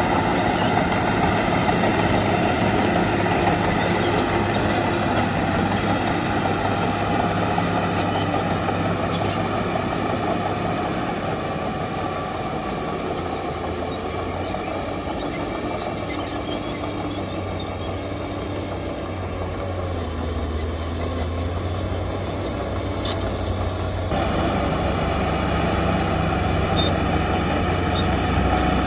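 Shantui DH17 bulldozer's diesel engine running steadily as it works. It eases off somewhat partway through, then picks up again sharply about three-quarters of the way in.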